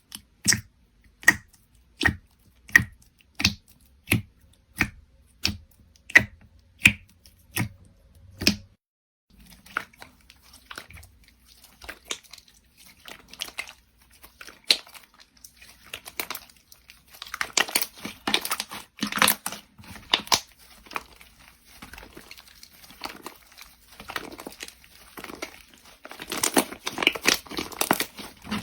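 Slime being handled. It first gives a steady series of sharp pops, about three every two seconds, for the first eight seconds or so. After a short gap come irregular crinkling, crackling squishes, loudest in two spells, midway and near the end.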